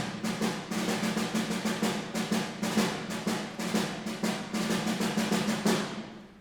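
Concert band percussion playing a run of quick drum strokes over a held low note, dying away near the end.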